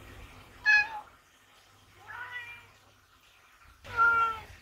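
Ragdoll cats meowing three times: a loud, short, high meow, a softer one, then another loud meow near the end. They are asking to have the barn door opened.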